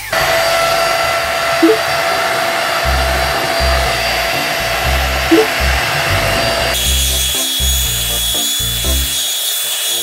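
Deerma DX700 vacuum cleaner in handheld mode, its motor running with a steady whine over background music with a bass beat. A little over two-thirds of the way through, the pitch of the whine changes.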